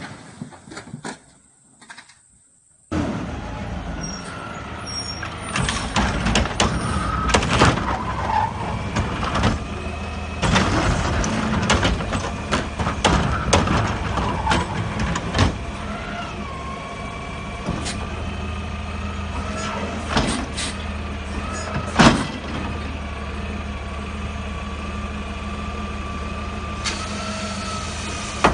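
A heavy truck's engine running steadily, with many scattered knocks and clatters and one loud knock about three-quarters of the way through; a faint steady whine joins past the halfway point. The first few seconds are very quiet before the engine sound starts suddenly.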